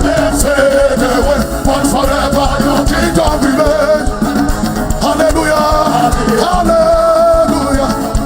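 Live gospel worship music: a band plays while voices sing a slow melody with long held notes.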